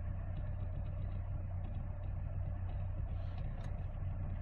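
Lada Niva Legend's 1.7-litre four-cylinder petrol engine running steadily at idle, with a slight tapping that appeared after a few revs, the engine knock heard at about 20,000 km.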